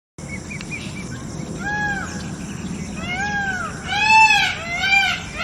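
An animal calling over a steady background hiss: short, rising-then-falling cries repeated about once a second, louder in the second half.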